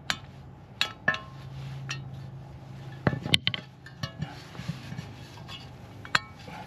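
Light hammer taps on metal, a handful of sharp irregular clinks, while a pressed-in front wheel bearing is being driven into the steering knuckle.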